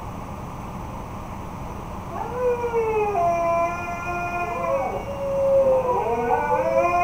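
Two huskies howling together, starting about two seconds in: long, wavering howls that glide up and down in pitch, their voices overlapping and crossing, over a steady background hiss.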